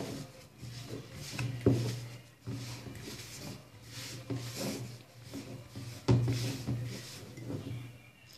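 Hands mixing and squishing flour with a wet yeast mixture in a plastic mixing bowl, with rubbing and rustling. Knocks of the bowl on the table come about 1.7 s and 6 s in, each followed by a low drone that fades.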